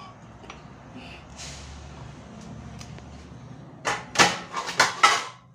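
Close handling noise: a quick run of four or five sharp clatters and rustles starting about four seconds in, over a low steady hum.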